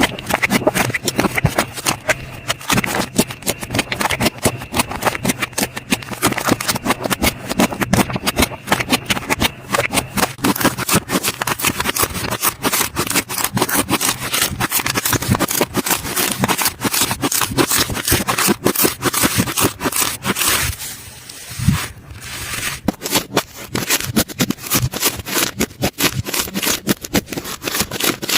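Slime being squeezed and worked by hand: a dense, continuous run of crackling clicks and pops, with a brief lull about 21 seconds in.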